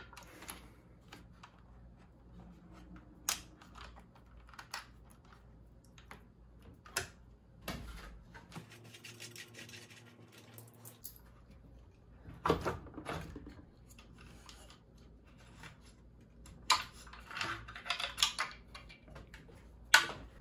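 Irregular clicks, taps and rattles of hands working the plastic wiring connectors and rear hub motor of an electric scooter. The clicks are scattered, with louder clattering about twelve seconds in and again near the end.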